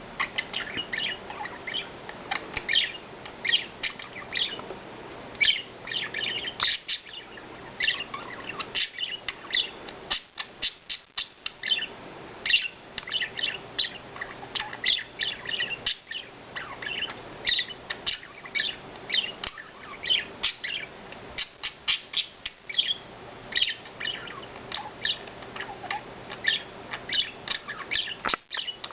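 Pet budgerigars chirping and chattering, a constant stream of quick high chirps.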